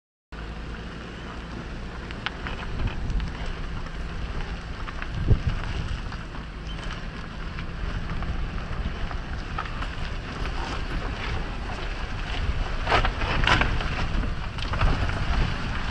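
A vehicle driving over a rocky dirt track: a steady low engine drone under wind noise on the microphone, with scattered knocks and rattles from the bumps, the sharpest about five seconds in and a cluster of them around thirteen seconds.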